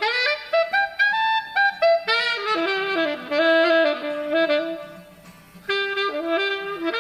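A single wind instrument playing a jazzy melodic line of short and held notes, as an instrument is checked at a band sound check. It stops briefly about five seconds in, then picks up again.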